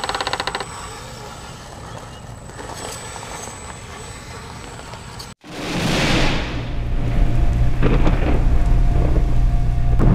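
An intro sound effect: a falling whoosh into a deep, rumbling thunder-like crash with heavy bass, starting suddenly about halfway through. Before it there is quieter outdoor noise with a thin steady high whine.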